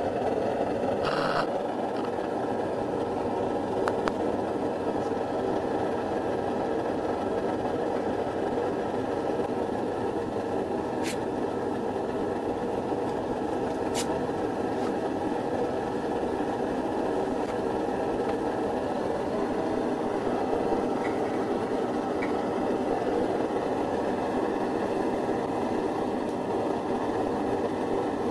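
MSR DragonFly pressurised liquid-fuel stove burning steadily under a pot, giving an even rushing burner noise. There is a brief knock about a second in and a couple of faint ticks later.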